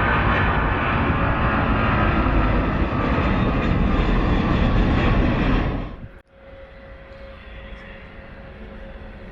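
Jet airliner engines, loud and steady, with a broad rushing noise. About six seconds in the sound cuts off abruptly, giving way to a much quieter background with a faint steady hum.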